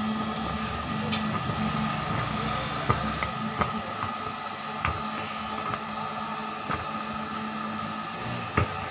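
Hot air gun running steadily with a low hum and a higher whine, heating the glue of a burnt speaker voice coil. A steel blade pries and scrapes at the coil former, giving several sharp clicks.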